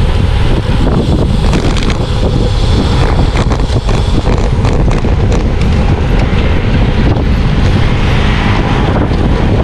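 Wind rushing loud and steady over the microphone of a camera riding on a road bike at racing speed, with a few small clicks.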